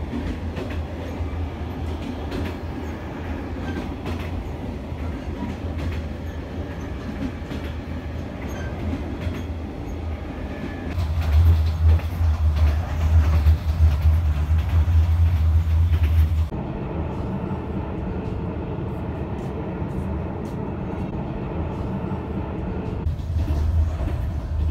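Passenger train running along the line: a continuous heavy low rumble with wheel and rail noise. It grows louder in the middle, then changes abruptly about two-thirds of the way through to a thinner, steadier running sound.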